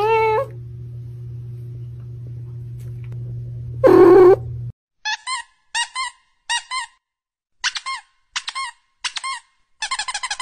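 A cat meows twice, once at the start and again about four seconds in, over a low steady hum. Then very young kittens mew in short, high, squeaky cries, mostly in pairs, ending in a quick run of rapid mews.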